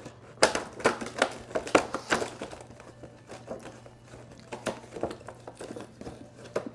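Stiff clear plastic packaging being pulled apart and slid off by hand, crinkling and crackling in many quick snaps. The crackles are densest in the first couple of seconds, then come sparser with another cluster around the fifth second.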